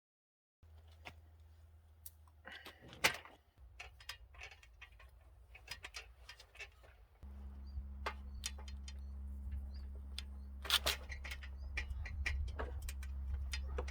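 Irregular sharp knocks and clicks over a faint low hum; the hum grows louder and steadier about halfway through.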